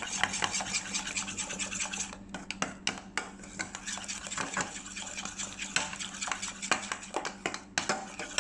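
Metal spoon stirring and scraping a thickening milk-and-cornstarch cream in a stainless steel saucepan: continuous quick strokes with small clinks against the pan, kept going without stopping while it cooks over the burner. A steady low hum runs underneath.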